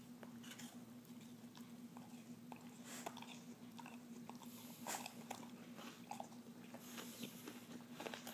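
Springer spaniel chewing food with its mouth open: faint, scattered crunches and wet mouth clicks, over a faint steady hum.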